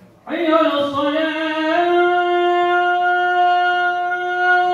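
A man reciting the adhan, the Islamic call to prayer, into a microphone. He comes in about a quarter-second in with a short ornamented run, then holds one long steady note.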